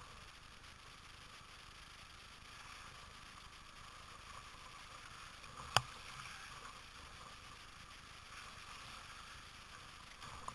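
Faint, steady wash of moving river water around a kayak, with one sharp knock about six seconds in.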